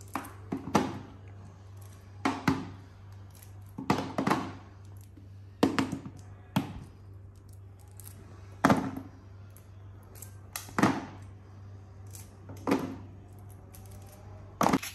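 Grapes dropped a few at a time into a nearly empty plastic bucket, each drop a short thud, about ten in all at uneven intervals of one to two seconds, over a low steady hum.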